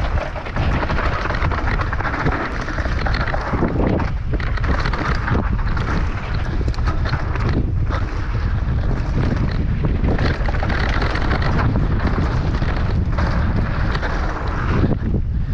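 Heavy wind buffeting the microphone during a fast mountain-bike descent, with rumbling and rattling from the hardtail bike over rough ground; a few brief dips in the noise.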